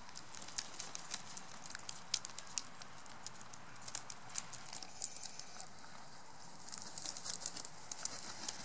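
Northwestern crow pecking sunflower seeds from a glass bowl, its beak making a string of irregular sharp clicks and taps that come thicker near the end.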